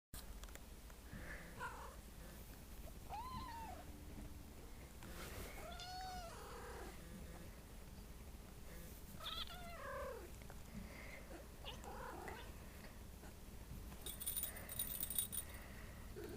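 A domestic cat making a string of short, odd meows, each rising and falling in pitch, spaced a second or more apart. Some faint clicking comes near the end.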